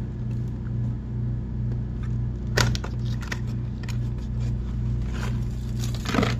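Cardboard packaging handled and opened: short rustles and scrapes of a small white box, with a sharper one about two and a half seconds in and another near the end. Under them runs a steady low hum that pulses evenly.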